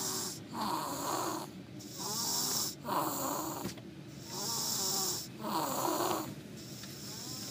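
Snoring in a steady rhythm, one breath cycle about every two and a half seconds. Three louder, rasping snoring breaths alternate with quieter, wavering breaths in between.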